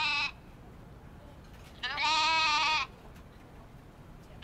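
Sheep bleating: the tail end of one bleat at the very start, then a single wavering bleat about two seconds in, lasting about a second.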